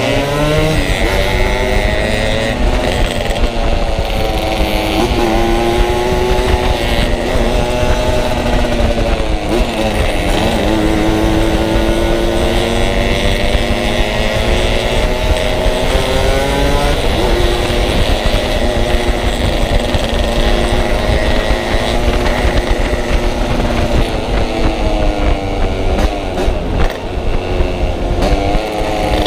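Yamaha RX-King two-stroke single-cylinder motorcycle engine running under way, its revs climbing and falling several times as the rider accelerates and eases off, with a deep dip about ten seconds in. Wind rumbles on the microphone underneath.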